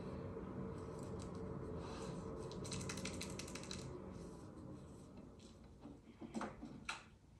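A quick run of light clicks and rustling, then a few separate sharp clicks near the end, over a low steady hum.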